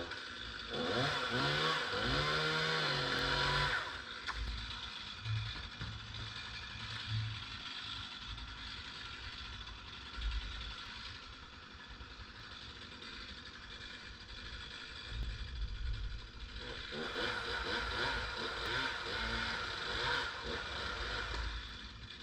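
Chainsaw running, revved up with its pitch rising and falling from about one to four seconds in, dropping back to a quieter run, then revved loud again from about 17 to 21 seconds in.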